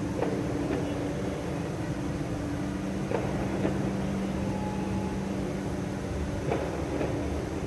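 Faint, distant fireworks bursts, three pairs of short muffled thuds, over a steady low hum.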